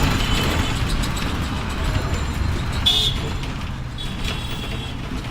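Road traffic running steadily, with a short, high-pitched toot about three seconds in and a fainter one a second later.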